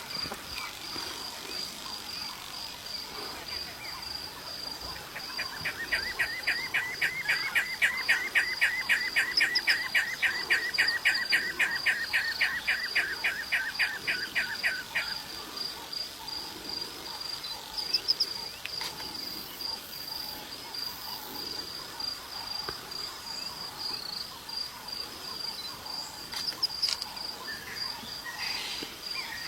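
Insects, cricket-like, chirping in a steady high pulsing trill throughout. From about five seconds in, a louder run of rapid repeated calls, about four a second, goes on for some ten seconds and then stops.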